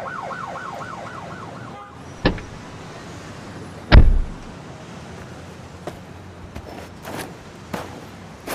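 Police siren yelping fast, then cutting off about two seconds in; then a click and, about four seconds in, a loud car door slam, followed by a few footstep-like clicks.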